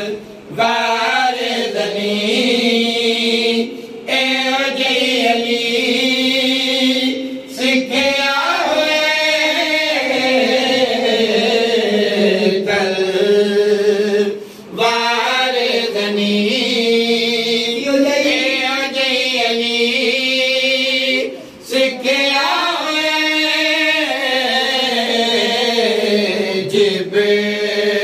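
Men's voices chanting a melodic devotional recitation together into a microphone, in long drawn-out phrases broken by short pauses for breath.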